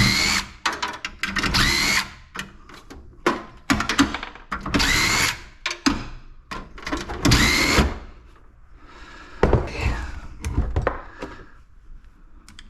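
Cordless drill/driver run in several short bursts, each rising in pitch as the motor spins up, backing screws out of a scrapped air filter's housing. Sharp clicks and knocks of metal parts come between the bursts.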